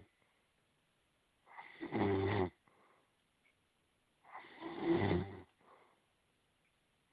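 Deep snoring, likened to a bear's: two long snores about three seconds apart, each swelling to a rumbling peak before stopping.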